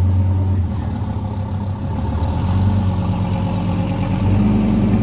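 Dodge Viper V10 engine running at low revs: a steady low engine note that swells slightly about halfway through and again near the end.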